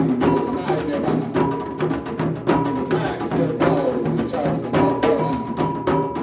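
Live drumming: several drums and other percussion playing a busy, even rhythm.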